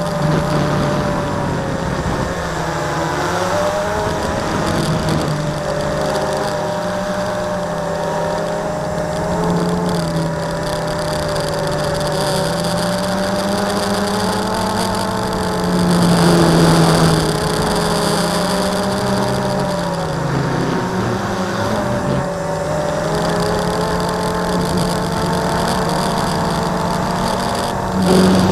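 Electric motors and propellers of an FPV multirotor drone, heard from its onboard camera: a steady buzzing whose pitch rises and falls with the throttle, swelling louder about halfway through.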